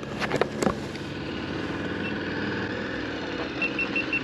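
Adventure motorcycle engine idling steadily, with a couple of sharp knocks in the first second. A quick run of high, evenly spaced beeps comes near the end.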